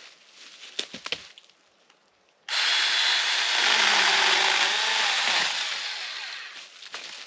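A few faint crackles and steps in brush, then about two and a half seconds in a power saw starts abruptly and cuts through wood for about three seconds, its sound tapering off near the end.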